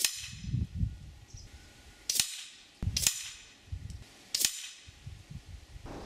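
Four sharp shots from a .22 SMK XS38 underlever spring air rifle, its pellets punching into a card target, with duller low knocks between the shots.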